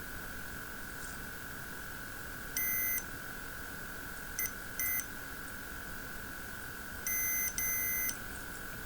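Electronic beeps from a soldering station as its temperature is turned up: one beep, two short quick beeps, then two longer beeps near the end, all at the same pitch over a steady high whine.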